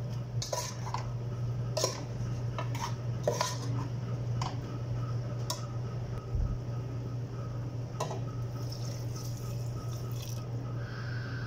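Metal spoon clinking and scraping against a stainless steel pot as beef and onions are stirred, in irregular knocks. Near the end water is poured into the pot, with a steady low hum underneath.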